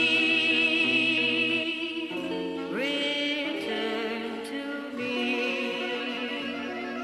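Edit soundtrack music: a high voice singing long held, wavering notes over sustained chords, with a new phrase sliding up about three seconds in and another about five seconds in.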